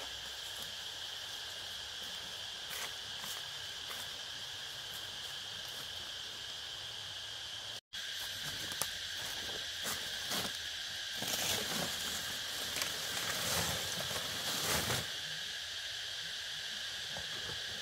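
Steady chorus of insects with a continuous high, even trill. From about ten seconds in, irregular rustling and light knocks join it.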